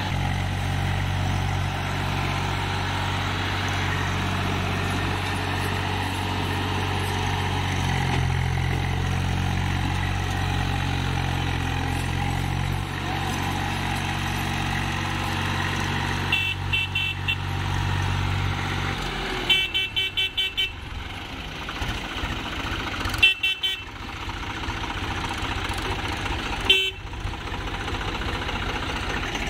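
Swaraj 735 FE tractor's three-cylinder diesel engine running steadily under heavy load while hauling a loaded sand trolley up a muddy slope. About two-thirds of the way in, the engine note drops away and a horn sounds in short rapid bursts, four times.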